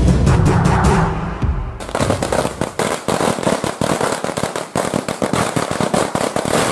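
Background music with a heavy beat for about two seconds, then firecrackers going off in a rapid, irregular string of sharp cracks.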